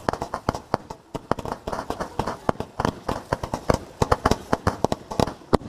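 Fireworks firing in rapid succession: a fast, irregular string of sharp bangs and pops, several a second, as shells and comets launch one after another.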